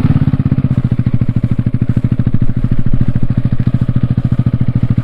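Yamaha XMAX 300's single-cylinder engine idling steadily through an open Akrapovic exhaust, a fast, even train of exhaust pulses.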